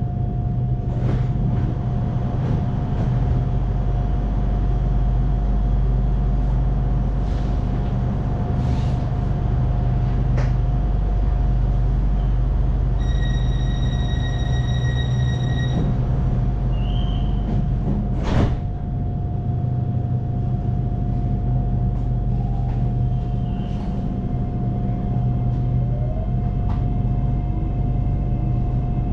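SRT Red Line electric commuter train running with a steady rumble and a constant whine. About halfway through, a steady electronic tone sounds for about three seconds, and a single sharp knock comes a little later.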